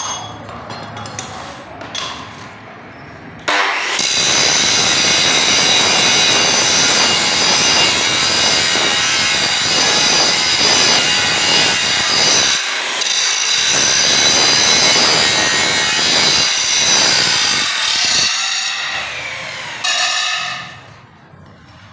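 Angle grinder with an abrasive disc grinding the surface of a steel bar clean for forge welding: a loud, harsh grinding noise over a steady high whine. It is preceded by a few knocks, starts about three seconds in, drops out briefly twice, and fades near the end.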